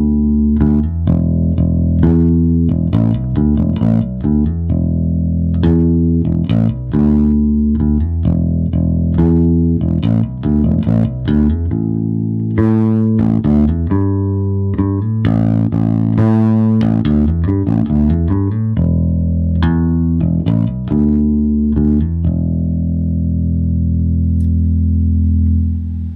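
1986 Ernie Ball Music Man StingRay bass played fingerstyle through a Gallien-Krueger Backline 600 head and a 4x10 cabinet, with its EQ set flat: a riff of plucked notes, the last one left to ring for several seconds near the end. The low end breaks up, farty on the camera mic.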